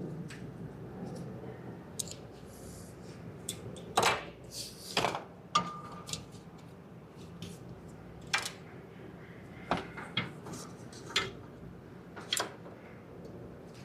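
Scattered sharp clicks and metallic clinks of hand tools and parts being handled during engine work, irregular and a dozen or so in all, the loudest bunched about four to five and a half seconds in, with one brief ringing tone just after.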